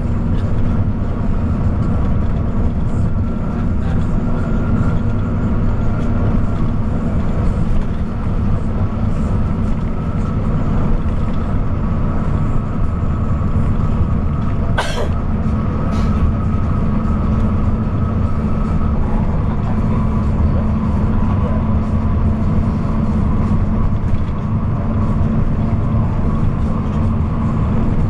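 Intercity bus running at speed on the highway: a steady, loud low rumble of engine and tyre noise, with two sharp clicks about halfway through.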